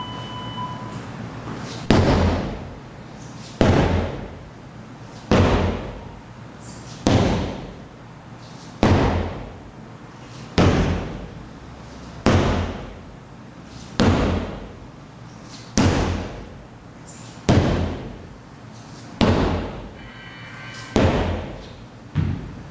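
Sledgehammer strikes in a steady rhythm, about a dozen heavy blows roughly one every 1.7 seconds, each dying away over about a second. A short electronic beep sounds at the start, marking the beginning of a tabata work interval.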